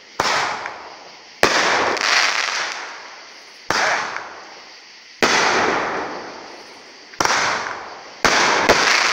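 A consumer firework cake, a nine-shot "Fire Breather", firing into the air: about seven sharp bangs spaced one to two seconds apart, each trailing off over a second or so.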